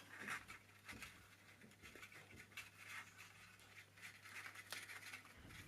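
Near silence with faint scattered rustling and light scratching: hands handling a paper cupcake case and cord toy, threading its loop onto a clip.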